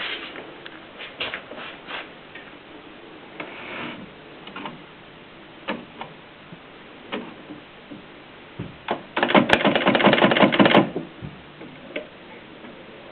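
A 1925 Mignon index typewriter working: single sharp mechanical clicks spaced a second or so apart, then about nine seconds in a louder, rapid rattle of clicks lasting under two seconds.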